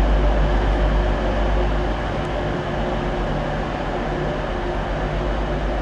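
TransPennine Express Class 185 diesel multiple unit moving slowly into a platform, its diesel engine running with a steady low drone.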